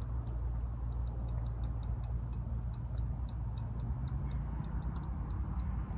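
Fishing reel clicking in an uneven run of sharp ticks, about three to five a second, with a hooked carp pulling on the line. A steady low rumble runs underneath.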